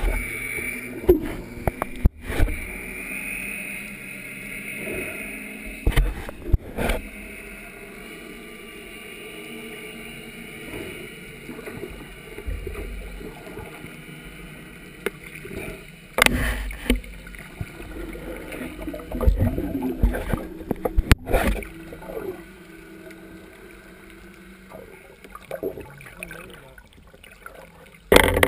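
Underwater sound through an action camera's housing: a steady hum, with irregular knocks and bumps as the diver swims and handles the spear line.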